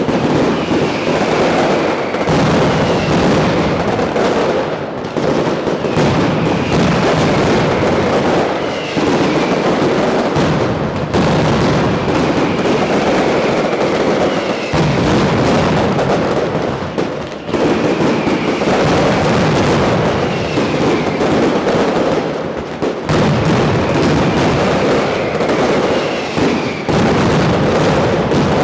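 Mascletà firecrackers going off in a dense, continuous barrage of bangs, with short falling whistles now and then.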